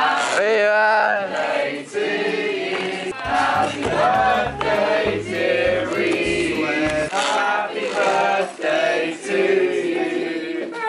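Music with a choir of voices singing, and a low beat joining in for a few seconds around the middle.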